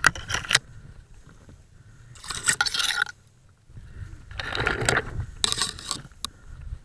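Bare twigs and branches scraping against clothing and the camera in several separate bursts, with crunching underfoot in snow, as someone pushes through snowy scrub. There is a sharp click a little after six seconds.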